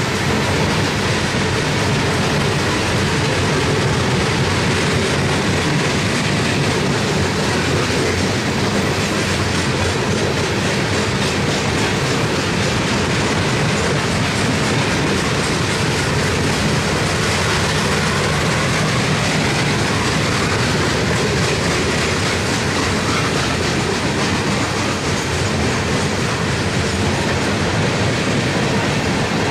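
Loaded coal hopper cars rolling past, their steel wheels clattering steadily over the rail diamond crossing in a continuous clickety-clack.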